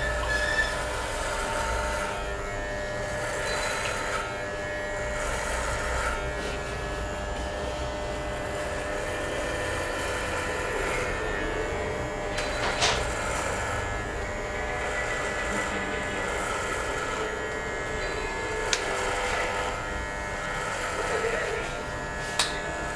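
Corded electric hair clippers buzzing steadily as they cut into a long, full beard, with a few sharp clicks along the way.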